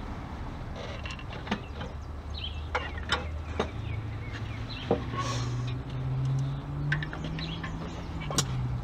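Scattered sharp metallic clicks and clanks from a chain hoist lowering the engine, transaxle and cradle a click at a time. Under them runs a low steady hum that rises in pitch a few seconds in, and birds chirp faintly.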